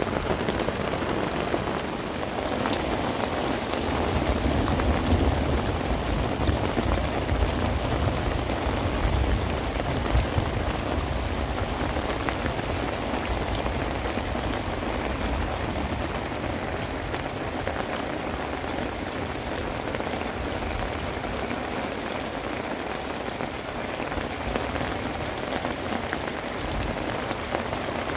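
Steady rain falling on stony, muddy ground. A low rumble under the rain is stronger from about four seconds in until about twelve seconds in.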